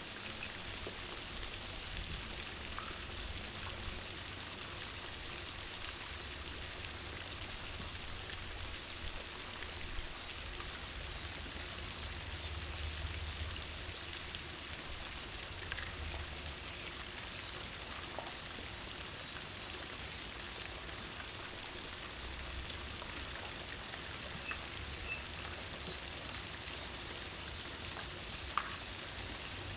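Steady outdoor hiss with a high, even ringing drone that shifts pitch twice, and a few faint short chirps or ticks over it.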